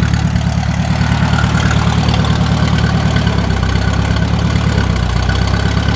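IH 350 Utility tractor's four-cylinder gasoline engine idling steadily; its low running note shifts a little about three seconds in.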